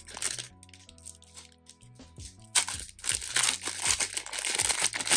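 Foil trading-card pack (Panini Rookies & Stars) crinkling as it is torn open by hand, with a few crackles at first and a loud run of crinkling from about two and a half seconds in.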